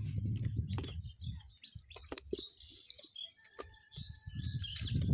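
Small birds chirping in short, scattered high calls, with one steady whistled note held for about a second and a half near the end.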